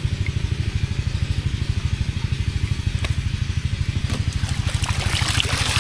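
Small boat engine idling with a steady fast pulse, and a short rustling noise near the end.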